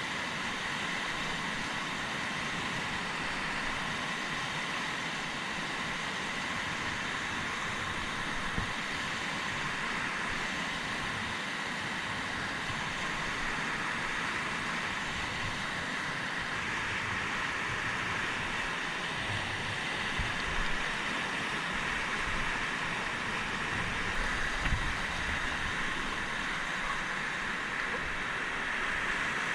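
Steady rush of a fast mountain river in spate, with a few brief low thumps.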